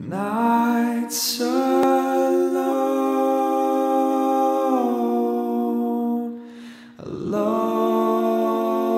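Wordless vocal music: a voice humming long, held notes that slide slowly from one pitch to the next, with a short breath between two phrases about six and a half seconds in.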